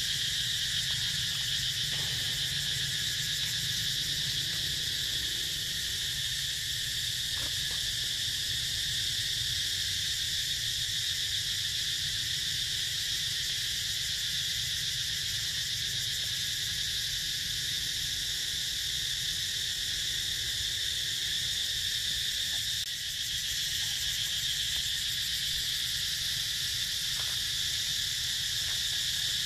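Steady chorus of insects: a continuous high-pitched buzzing drone that holds even, without breaks.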